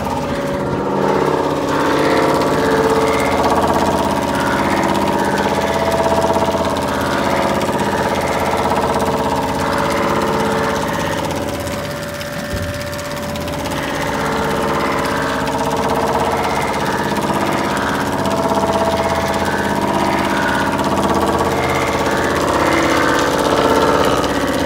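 Cylinder head resurfacing machine running, its cutter passing over the gasket face of a Perkins four-cylinder diesel head under a coolant spray. It makes a steady mechanical hum with several steady tones, swelling and easing slowly, with a brief dip about halfway through.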